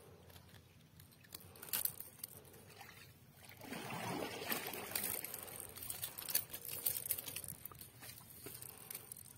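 Shallow river water splashing and trickling around a caught silver arowana held in the water at the angler's feet, with a few small clicks at first, then louder sloshing from about a third of the way in until near the end.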